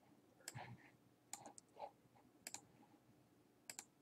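Near silence with a few faint computer mouse clicks scattered through, some in quick pairs like double-clicks.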